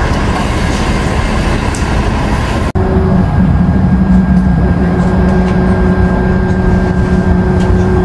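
City bus: the bus running at a stop, then after about three seconds an abrupt change to the inside of the bus, a steady engine hum with a strong low drone.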